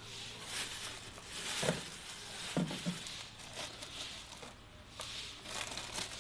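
Irregular rustling and crinkling handling noise, with a few brief pitched squeaks about two and three seconds in.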